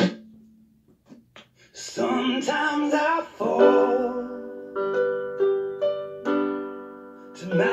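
A worship song with piano: after a brief pause of near silence, a voice sings a short line, then piano chords ring out and are held.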